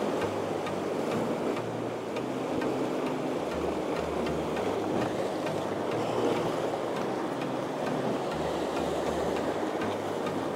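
Surf washing against a rocky shoreline as a steady rushing, with a quiet background music track underneath: a low bass line moving in steps and light regular ticks.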